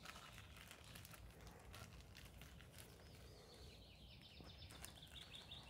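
Near silence: faint outdoor ambience with a few soft clicks, and a faint high chirping call in the second half.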